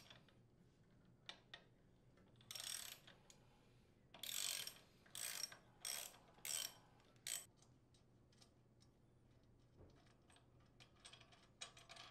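Socket ratchet clicking in about six short bursts as it unthreads the center mounting bolt that secures a chipper shredder's blade and impeller, followed by a few faint light clicks near the end.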